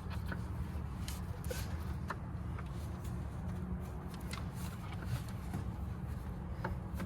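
Scattered light clicks and scrapes of hands and a tool working at a squeeze-type clamp in a car's engine bay, over a steady low rumble.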